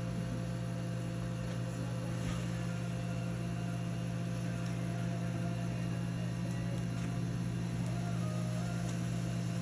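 A steady low machine hum with a few faint steady tones above it, unchanging throughout.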